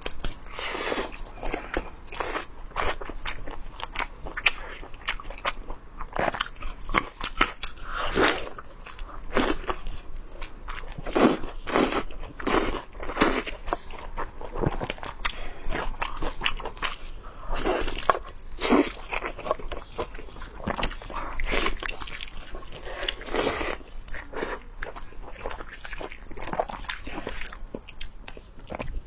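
Close-up eating sounds: a person biting, tearing and chewing meat off roasted lamb ribs, with irregular wet crunching and smacking.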